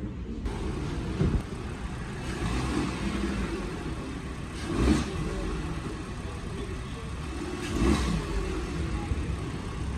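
Volkswagen Jetta driving, with steady engine and road noise. Three louder thumps come about a second in, near the middle and near the end.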